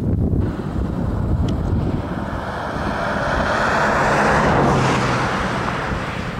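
A road vehicle passing by, its tyre and engine noise building to a peak about four and a half seconds in and then fading away, over low wind rumble on the microphone.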